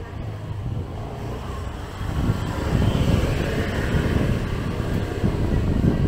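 Street traffic noise with wind buffeting the microphone, growing louder about two seconds in.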